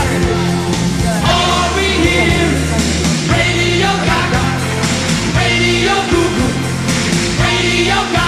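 Rock song with singing over sustained bass notes.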